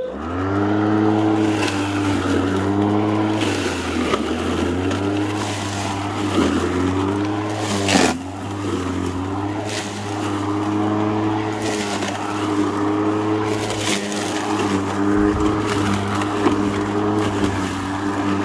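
Makita DLM382 twin-18 V (36 V) brushed cordless lawn mower starting up and running, its motor and blade hum dipping in pitch again and again as it bogs down in thick, overgrown grass. Scattered clicks and a sharp crack about eight seconds in come from material striking the blade.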